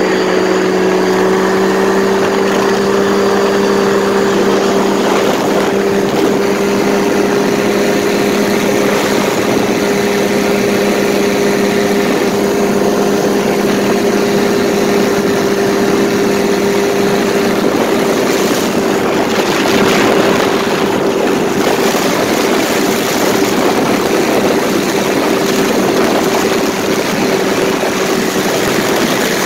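Paramotor engine and propeller running at a steady cruise in flight, a constant drone that holds one pitch. A few brief bursts of extra noise come about two-thirds of the way in.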